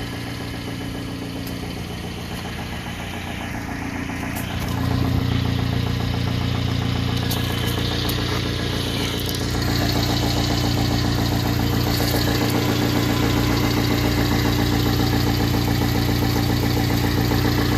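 Subaru Sambar minitruck engine idling steadily while warming up; the sound steps up in level about five seconds in and again near ten seconds.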